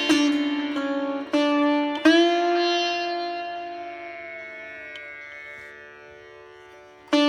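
Instrumental music on a plucked string instrument, sitar-like, over a steady drone. A few quick plucked notes are followed by one long note that slowly fades with a slight bend in pitch, then a new note is struck near the end.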